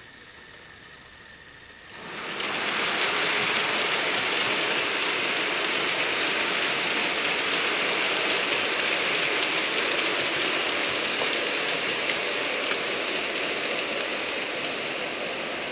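Model railway Class 37 locomotive hauling a rake of Yeoman wagons past: a steady rattling hiss of small wheels on the track, full of little clicks, which swells up about two seconds in.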